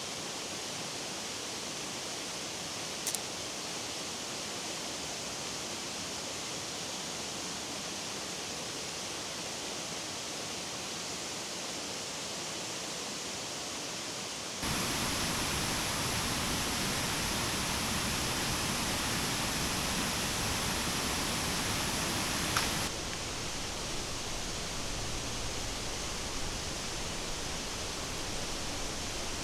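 Steady rainforest ambience, an even hiss that jumps louder about halfway through and drops back abruptly about three-quarters of the way through.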